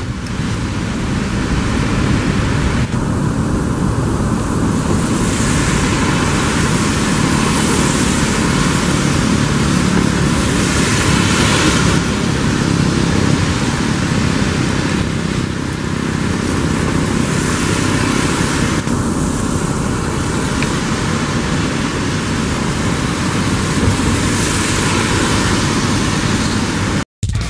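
Jet engines of a departing Boeing 777F, its GE90s giving a loud, steady rumble as it climbs away. The sound cuts out abruptly just before the end.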